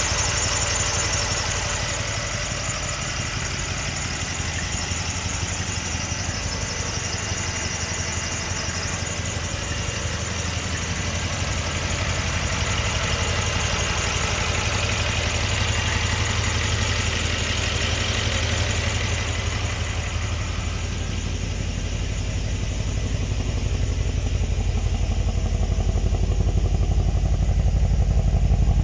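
Mercedes-AMG C63 S twin-turbo V8 idling steadily. The higher mechanical sound from the engine bay fades about two-thirds of the way through, and the low exhaust note grows louder near the end.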